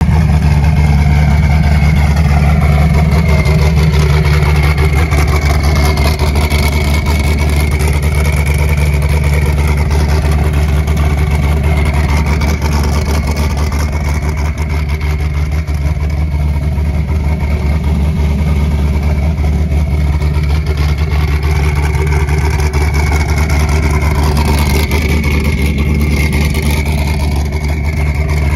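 Twin-turbo LS V8 of a Funco FD9 sand car idling steadily, a deep even rumble with no revs.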